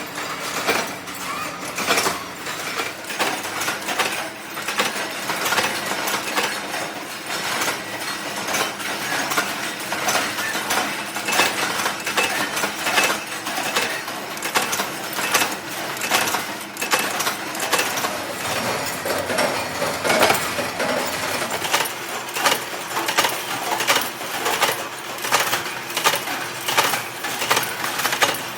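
Small metal parts clinking and knocking, sharp strikes at an uneven pace of about one or two a second over a steady machine hum.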